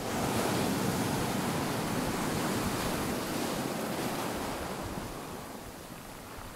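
Ocean surf: a wash of wave noise that swells in suddenly at the start and slowly eases off over the last couple of seconds.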